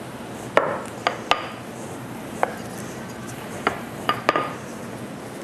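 Wooden rolling pin rolling out pizza dough on a countertop, with about seven sharp knocks and clacks at irregular intervals as the pin is worked back and forth.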